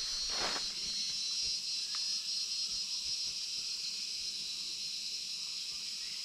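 A steady, high-pitched drone of forest insects.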